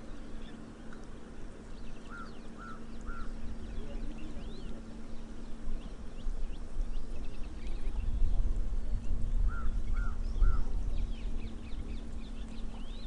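Outdoor river ambience with birds calling. A bird gives a three-note call about two seconds in and again near ten seconds, over many faint high chirps. Under it run a steady low hum and a low rumble that swells in the second half.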